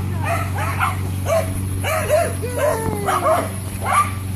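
Dogs barking repeatedly, about two to three barks a second, with one longer falling call a little past halfway, over a steady low hum.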